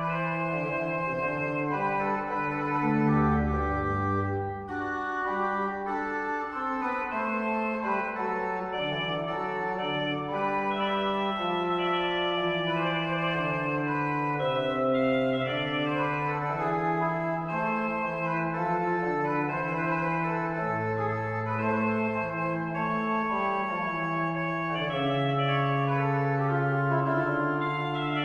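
1974 Flentrop mechanical-action pipe organ playing a two-voice duet: a low line and a higher line move against each other in steady sustained notes. One manual sounds a tierce combination (stopped flute 8', flutes and octave 4', nasard, 2' flute and tierce), the other a five-rank cornet, which gives both voices a bright, reedy-sounding colour.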